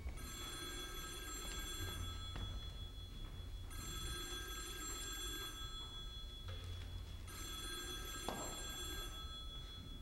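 Telephone ringing: three rings of about two seconds each, separated by pauses of about a second and a half.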